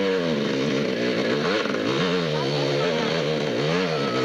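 Motocross motorcycle engines revving, the pitch rising and falling again and again as the riders open and close the throttle on a dirt track.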